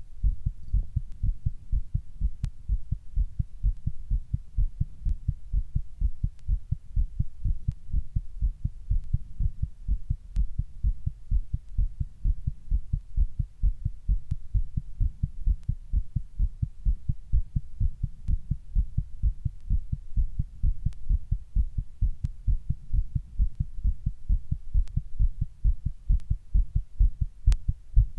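A person's heartbeat picked up close, a fast, even run of low thumps.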